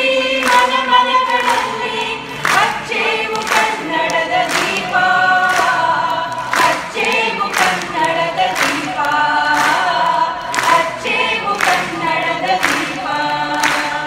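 A mixed group of men and women singing a Kannada song in chorus, with hand claps keeping a steady beat about twice a second.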